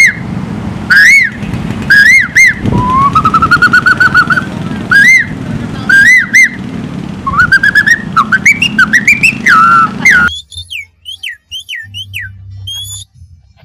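Human imitation of birdsong, whistled through cupped hands: loud, repeated rising-and-falling whistle notes, with a rapid warbling trill about three seconds in. Near the end it changes abruptly to a quieter series of short, high, falling chirps.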